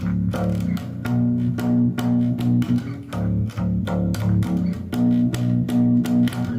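Instrumental break in an alternative rock song: a bass guitar riff of sustained low notes over a steady beat, with no singing.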